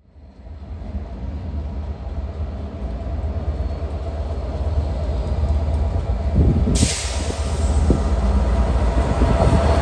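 Class 67 diesel-electric locomotive approaching with a rake of Mark 4 coaches, its engine's deep drone growing steadily louder. From about seven seconds in, a broad hiss joins as the train nears.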